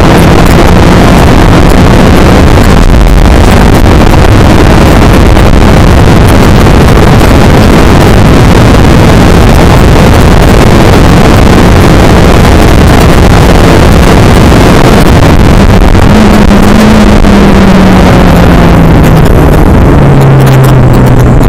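Skip Barber race car's engine running hard, heard very loud from onboard with wind rushing past. Over the last few seconds its note falls, then drops down lower near the end as the car slows.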